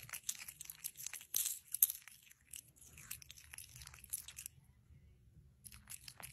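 Capuchin monkey chewing with his mouth open, a run of quick wet smacking and crunching clicks. They thin out, stop briefly about four and a half seconds in, and start again near the end.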